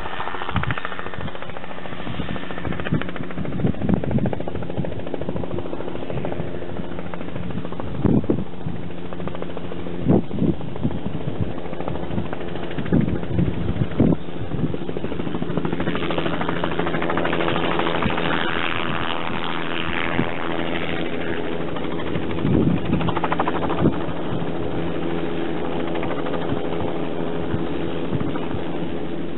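Crop-spraying helicopter's engine and rotor, a steady drone with several held tones, coming in to land on a platform on a tanker truck. Irregular low thumps come through the first half, and the sound grows fuller and brighter past the middle.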